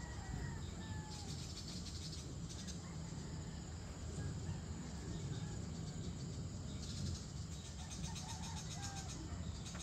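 Dusk ambience: a steady low rumble, with a few faint bird chirps at the start and again near the end, and patches of high, fine insect trilling.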